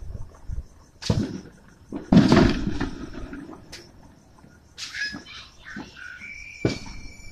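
Fireworks going off: a handful of sharp bangs, the loudest about two seconds in with a short low rumble after it, and a few high chirps and a brief steady high whistle near the end.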